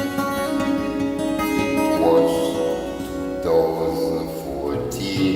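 Music led by acoustic guitar, playing steadily throughout.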